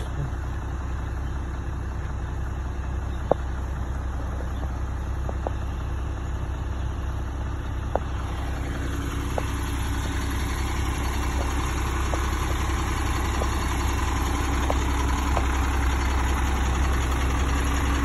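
Concrete mixer truck's diesel engine idling steadily, growing louder through the second half as a clear engine hum comes up, with a few faint short ticks.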